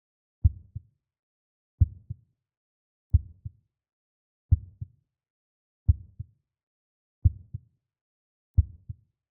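Heartbeat sound effect: slow, steady lub-dub beats, each a deep thump followed closely by a softer second one. There are seven beats, a little under one every second and a half.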